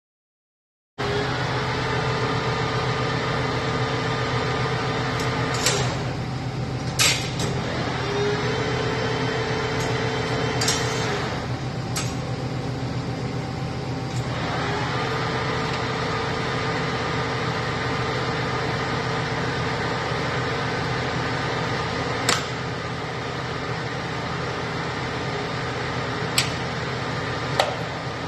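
A 10 HP American Machine Tool Turnmaster PHL 1500 engine lathe running with its chuck spinning: a steady mechanical hum with a whine that drops out and comes back a few times. Several short sharp clicks come over it.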